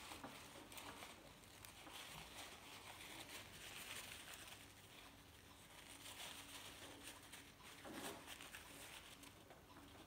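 Faint rustling and crinkling of a paper towel as hands rub and wipe a small gas lighter part clean.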